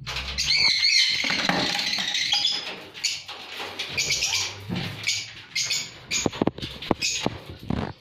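Lovebirds chattering and screeching, loudest and most continuous for the first couple of seconds, then in scattered chirps. A few sharp knocks sound near the end.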